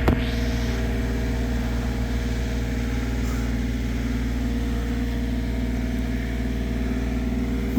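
An engine running steadily at a constant idle-like speed, with one sharp click just after the start.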